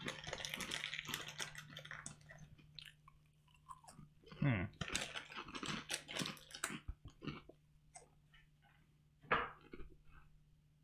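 Close-up chewing and crunching of crisp deep-fried miso rice crackers, dense crackling at first and then separate crunchy bites. A short low hum from the eater, falling in pitch, cuts in about four and a half seconds in, and a single sharp knock comes near the end.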